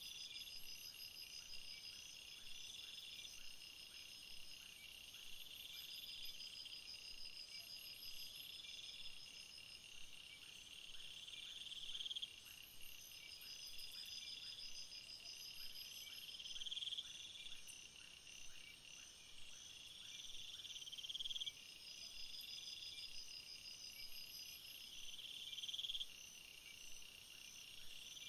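Chorus of insects trilling. It is high-pitched and pulsed, in repeated phrases of about two seconds that swell in loudness and then stop abruptly.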